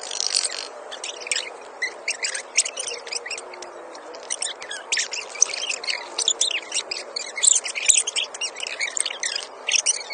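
Many small birds chirping, a dense run of short, quick calls over a steady background hiss.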